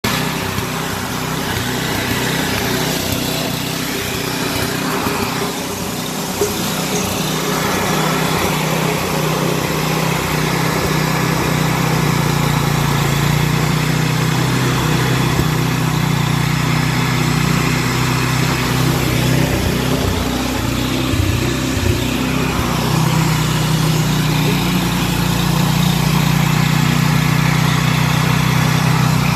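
Handheld hair dryer running steadily at close range, a continuous rush of blown air over a low motor hum.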